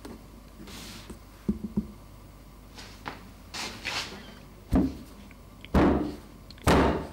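Metal cake pan full of cheesecake filling tapped down on a cloth-covered counter: a few light knocks as it is gripped, then three dull thuds about a second apart in the second half, the usual way to level the filling and knock out air bubbles.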